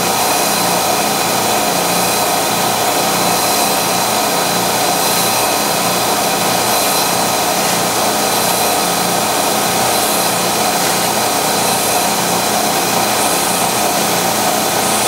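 Vertical milling machine's spindle running steadily while a number 38 cobalt drill bit is pecked into a steel rifle bolt, drilling a little and pulling back out. A faint higher cutting sound comes back about every second and a half.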